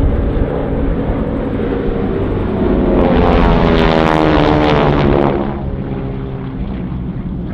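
Formation of North American Harvard trainers, their nine-cylinder Pratt & Whitney R-1340 Wasp radial engines and propellers running at power as they pass overhead. The sound swells about three seconds in and falls in pitch and level as the planes go past.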